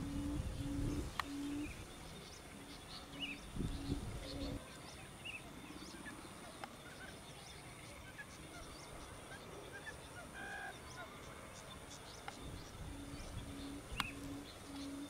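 Low hooting call of a barred buttonquail, a quick run of short identical notes at one pitch, about two a second. It sounds in the first second or two, briefly again about four seconds in, and starts up again near the end. Small bird chirps are scattered through the quieter middle.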